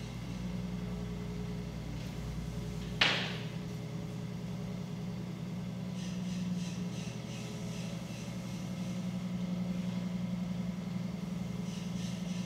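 Electric potter's wheel motor running with a steady hum while clay is thrown on it, with one sharp knock about three seconds in.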